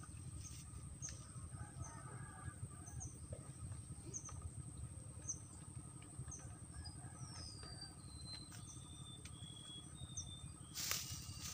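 Quiet outdoor ambience of small birds chirping: short high chirps every half second or so, with a few down-sliding whistles and short held notes midway, over a steady high insect-like whine and a low wind rumble. A louder rustling starts near the end.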